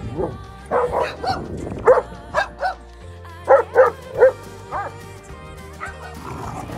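Dogs barking and yipping during rough play, a string of short sharp barks that are loudest between about two and four and a half seconds in, over background music.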